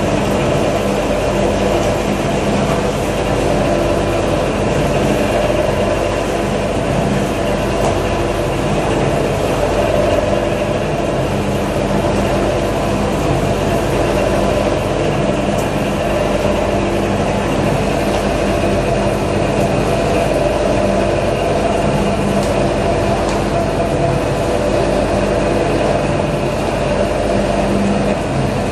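J H Day double ribbon mixer running, its 10 hp motor drive turning the stainless steel ribbon shaft. A loud, steady mechanical hum with several steady tones, holding one speed throughout.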